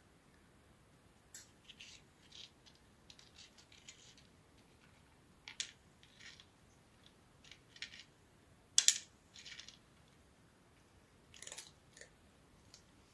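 A cat crunching dry kibble: scattered short, crisp crunches and clicks, the loudest about nine seconds in.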